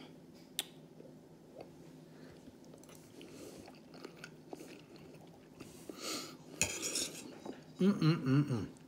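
A man chewing a mouthful of orzo, with a metal fork clicking sharply about half a second in. Near the end comes a short wavering hummed 'mm'.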